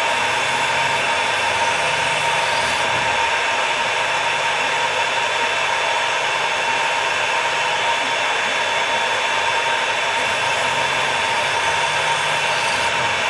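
Knife sharpening machine running loudly and steadily: a constant hiss with a steady whine over it.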